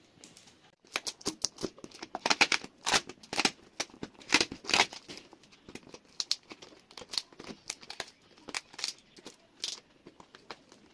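Scissors snipping through a plastic courier mailer while hands crinkle and pull at the plastic. The snips and crackles come in a quick, irregular run, starting about a second in.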